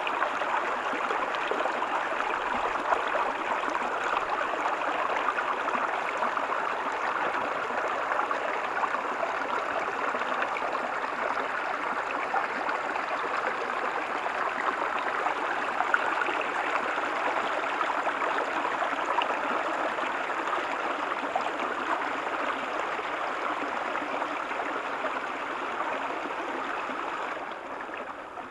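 Water from a small artificial waterfall splashing and rushing steadily, a bit quieter near the end.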